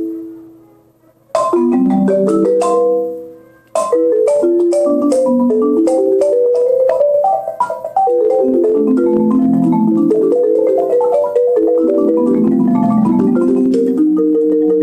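Marimba played with mallets. A chord rings and dies away, a short phrase follows and fades, then a long run of notes rises and falls. It ends on a held chord sustained by a rapid mallet roll.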